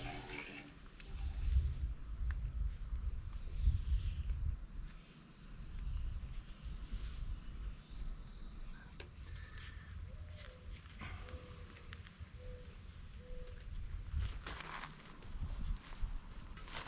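A steady, high-pitched insect chorus, cricket-like, with a low rumble in the first few seconds and a few short, faint low notes near the middle.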